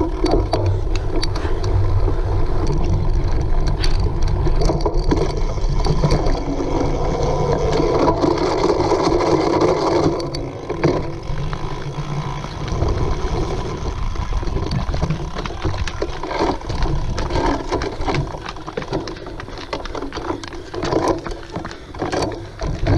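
A cyclocross bike being raced over rough ground, with the steady rush of wind on the microphone and frequent rattles and knocks from the bike. The noise is louder through the first ten seconds or so, then eases off.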